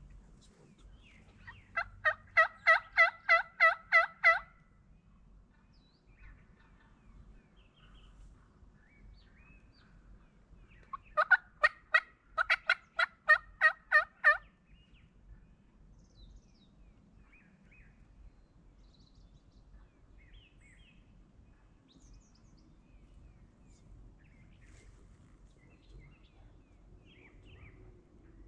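Male wild turkey gobbling twice, each gobble a fast run of about ten loud notes lasting some two and a half seconds, the second gobble about ten seconds after the first.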